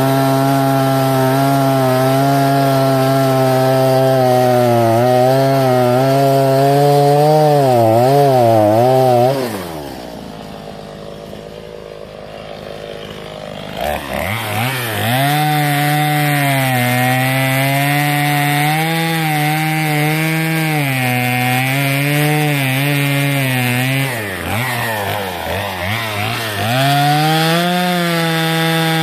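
Two-stroke gas chainsaw cutting through a fallen log at high revs, its pitch wavering as it is loaded in the cut. About ten seconds in it drops back to idle for a few seconds, then revs up again for the next cut, sagging briefly in pitch under load near the end.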